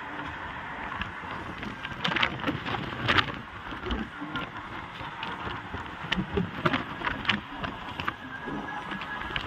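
Car driving along a road, heard from inside the cabin: a steady road-noise hiss with many irregular clicks and taps from about two seconds in.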